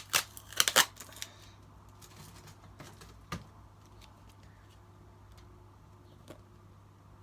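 Tape and plastic packaging being picked at by hand: a quick run of sharp clicks and crackles in the first second or so, then a few single clicks with quiet between.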